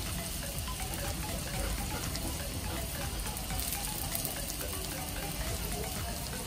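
Shami kebab patties shallow-frying in bubbling oil on a flat griddle pan: a steady sizzle with fine crackles and spits.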